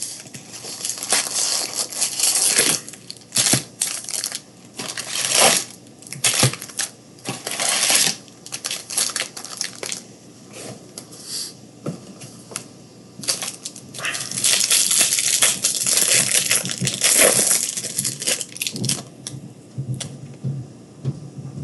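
Plastic wrapping and card packs being torn open and handled: irregular crinkling and tearing with sharp clicks, in bursts that come thickest about two seconds in and again from about two-thirds of the way through.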